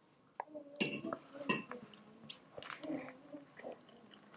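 A person biting into and chewing a barbecue beef and bacon sandwich on a soft bun: soft, moist, irregular eating sounds that start about a second in.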